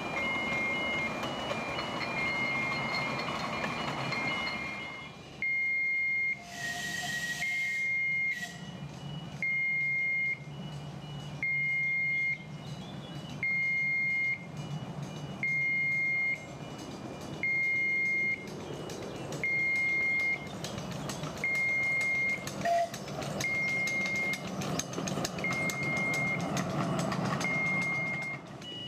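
Electronic warning beeper sounding one steady high tone about once every two seconds, each beep just under a second long, over a low steady hum. A short burst of hiss comes about seven seconds in.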